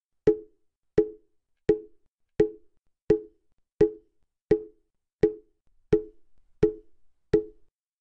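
Mokugyo, the Buddhist temple wooden fish drum, struck at a slow, even pace of about one knock every 0.7 seconds, eleven strokes in all. Each knock is a short pitched wooden tone that dies away quickly.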